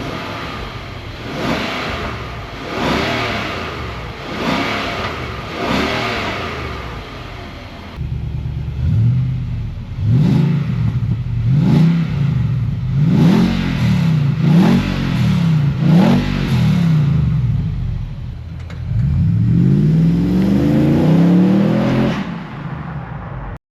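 Nissan Patrol Y62's 5.6-litre V8 through a Pacemaker headers, King Brown high-flow cats and 3-inch cat-back exhaust, revved in repeated blips: four in the first stretch, then after a change about eight seconds in, about six quicker, louder blips and a longer held rev near the end.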